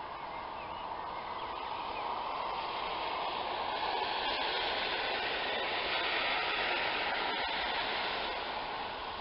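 A car passing on a rain-wet road: tyre hiss that swells, is loudest in the middle and fades away near the end.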